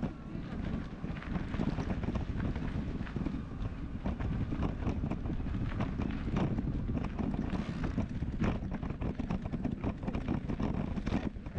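Wind buffeting the microphone of a camera on a moving bicycle, with a steady low rumble and frequent small clicks and rattles.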